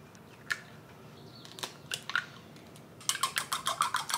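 A few light cracks and taps as eggs are broken into a ceramic bowl, then from about three seconds in a fast, steady clicking of chopsticks beating the eggs against the sides of the bowl.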